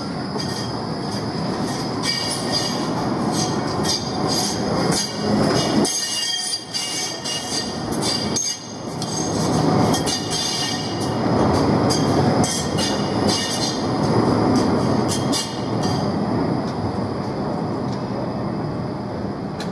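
Electric low-floor tram rolling past close on the curved track of a turning loop, its wheels squealing against the rails over the rumble of its running. Loudest about halfway through as it passes.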